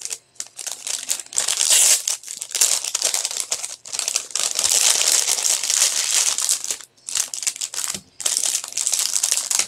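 Small crinkly plastic packets being handled and crinkled, in bursts broken by brief pauses.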